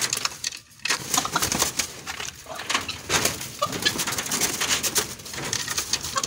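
Male peacock flapping its wings and scrambling against a wire-mesh cage while it is being caught: a dense run of irregular rustling flaps and knocks.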